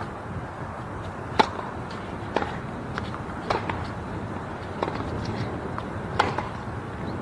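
Tennis rally on a hard court: a string of sharp pops from the ball striking rackets and bouncing, about a second apart, the loudest about a second and a half in and again near the end. Steady wind noise on the microphone runs underneath.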